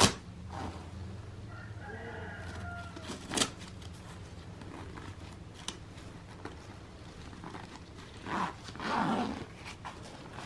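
Hands handling textile motorcycle pants at the ankle cuff and strap: a sharp strap or fabric sound about three and a half seconds in, and a rustling stretch near the end as the leg's side zipper is worked. A short pitched call sounds in the background about two seconds in, over a low steady hum.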